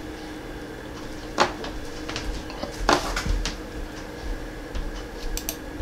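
A few scattered clicks and light knocks, two of them louder about a second and a half and three seconds in, over a faint steady hum.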